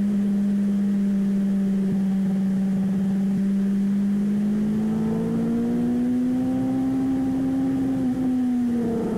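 Motorcycle engine running at a steady throttle, its pitch slowly rising from about halfway through and dropping back near the end.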